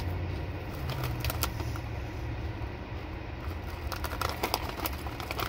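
Potato chips crunching as they are chewed and a foil chip bag crinkling as it is handled: scattered crackles that thicken about four seconds in, over a steady low hum.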